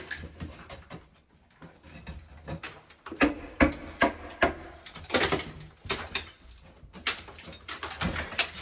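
Ceramic wall tile being knocked off with hand demolition tools: irregular sharp knocks and cracks with clattering pieces. The strikes come in quick succession through the middle.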